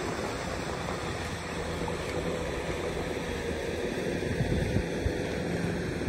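Wind on the microphone over a steady low engine hum, with a few short thumps near the end.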